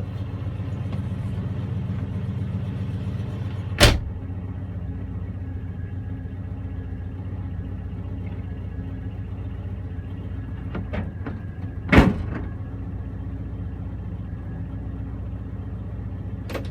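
1971 Oldsmobile Cutlass S engine idling steadily while it warms up after a cold start. Two loud slams cut across it, about four seconds in and again about twelve seconds in, as the hood and body panels are shut.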